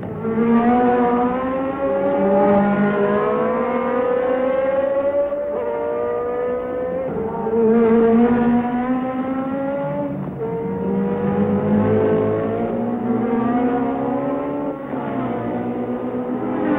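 1973 Formula One race car engines accelerating hard, the engine note climbing in pitch and dropping back at each upshift, several times over.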